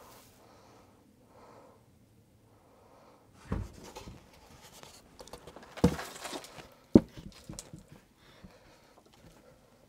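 Wooden planks being handled and set down on a wooden deck: a few knocks and thumps of wood on wood, the sharpest about seven seconds in, with scraping and rustling between.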